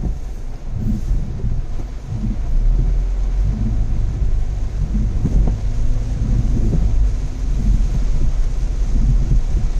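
Car driving along a road: a steady, low rumble of engine and tyres.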